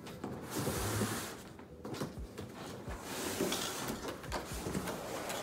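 Large cardboard shipping box scraping and sliding as a cardboard-padded wakeboard is pulled out of it. The scraping comes in two stretches, starting about half a second in and again a couple of seconds later, with a few light knocks.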